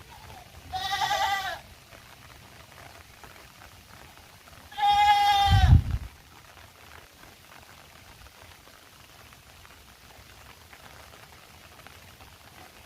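A farm animal bleats twice, each call wavering and just under a second long; the second is louder, with a low rumble under it. Faint steady rain fills the rest.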